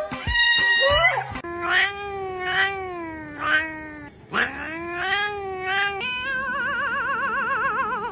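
A cat yowling in long, drawn-out calls, the last one wavering evenly up and down.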